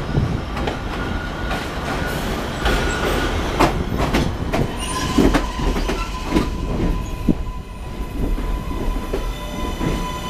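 New York City Subway R143 train pulling into an elevated station past the platform, its wheels clicking over rail joints. A steady high whine sets in about four seconds in, and more high tones join it near the end.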